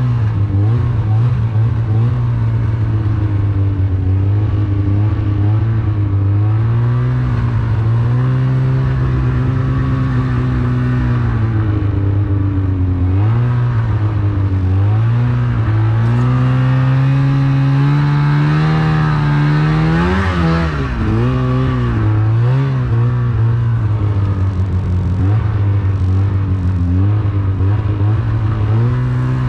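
Widetrack snowmobile engine running under way, its pitch rising and falling with the throttle. About halfway through the engine note climbs steadily, peaks about two-thirds in, then drops quickly.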